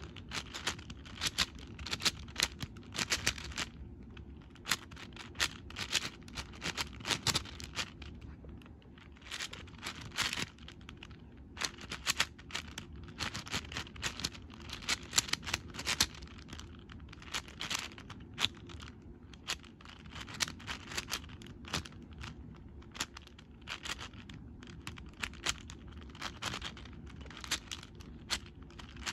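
Magnetic X-Man Shadow V1 M 6x6x6 speedcube, lubed with Silk, being turned fast by hand mid-solve: rapid bursts of plastic clicking and clacking from the layers, with short pauses between bursts.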